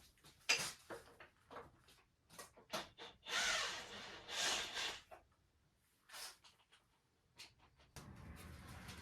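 Scattered clicks and knocks of tools and parts being handled during engine work, with two short hissing rushes a few seconds in and a low steady hum starting near the end.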